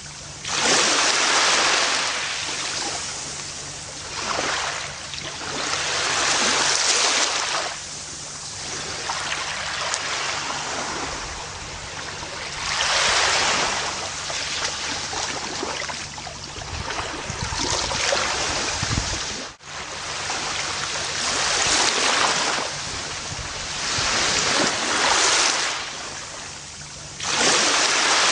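Gentle ocean waves breaking and washing up a beach, each wave a rush of surf that swells and fades every few seconds. About twenty seconds in there is a brief sudden drop in the sound.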